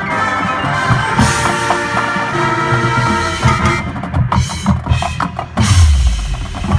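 High school marching band playing: the brass and woodwinds hold chords over the drumline. About three and a half seconds in, the winds thin out to sharp, separate percussion hits. A heavy low drum hit lands near six seconds in.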